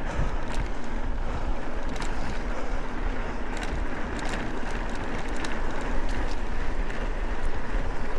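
Car driving along, with steady engine and road noise and wind buffeting the microphone.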